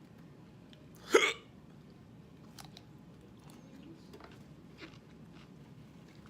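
A man eating a burger: faint mouth and chewing clicks, with one short, sharp throat sound about a second in.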